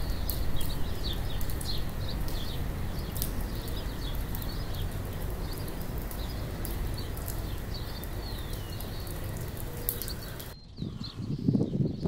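Small birds chirping repeatedly, short rising and falling chirps, over a steady low background rumble of outdoor ambience. About ten and a half seconds in the sound cuts abruptly to gusts of wind buffeting the microphone.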